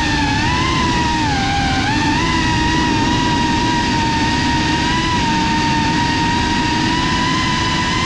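FPV quadcopter's brushless motors and propellers whining steadily, the pitch dipping and rising again about two seconds in as the throttle changes, over a rough rushing noise.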